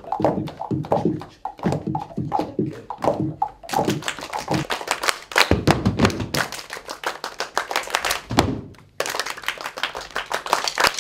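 Group percussion: many rapid taps and knocks struck together, starting about four seconds in, after a few seconds of pitched, wavering sounds.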